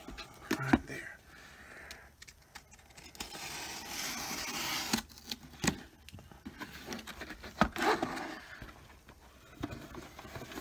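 Cardboard packaging being cut and torn open by hand: scraping and rustling of cardboard, a long tearing rasp lasting about two seconds around the middle, and several sharp knocks of the box being handled.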